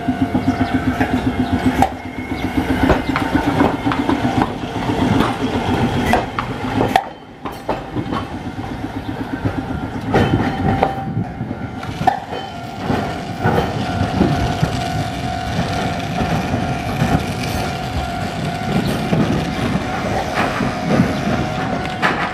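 Hankai Tramway 700-series tram running over street track and points, its wheels clicking over rail joints, with a steady high tone that sets in about ten seconds in.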